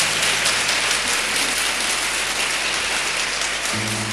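Audience applauding, a dense patter of claps; near the end an acoustic guitar starts to ring again.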